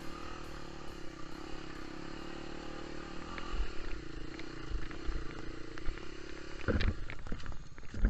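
Motorcycle engine running steadily, with a few sharp knocks about seven seconds in.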